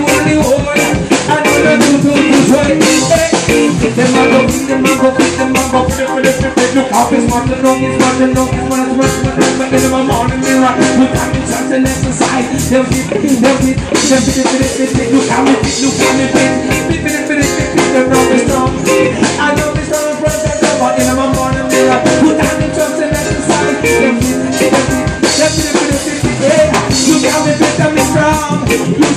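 Live reggae band playing: drum kit with steady, even strikes, electric bass and electric guitar, with a vocalist singing into the microphone.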